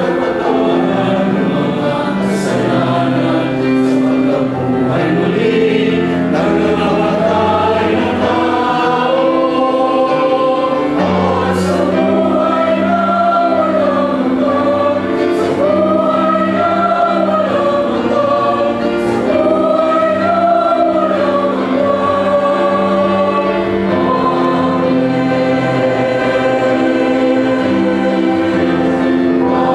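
Mixed church choir of men and women singing a hymn, held notes over steady low keyboard chords.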